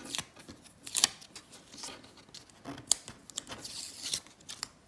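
Strips of paper masking tape being peeled off watercolor paper: a series of short crackling peels and paper rustles, loudest about a second in and again near three seconds.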